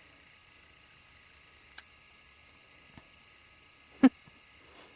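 Steady high chirring of night insects, crickets, with a short sharp knock about four seconds in and a couple of faint ticks before it.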